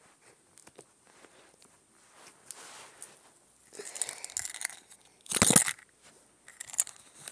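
Clear slime being stretched and squished by hand, with faint crackles and clicks, then louder crinkling and rustling and one loud rough scrape about five and a half seconds in.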